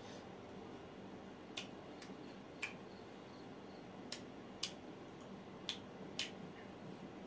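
A person chewing pieces of roasted mutton sekuwa with the mouth open: about seven sharp, wet smacking clicks at irregular intervals over a faint steady hum.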